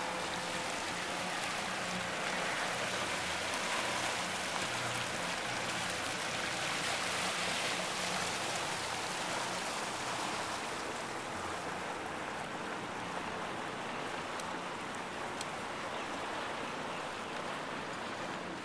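Boat underway: a steady rush of water and wind, with a low motor hum beneath it.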